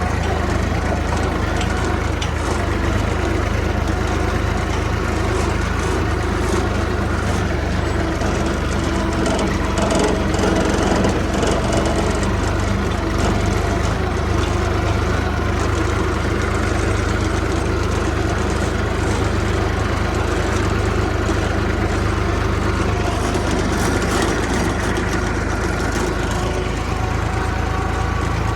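Diesel engine of a Kubota U30 mini excavator running steadily at working speed, swelling slightly about ten seconds in.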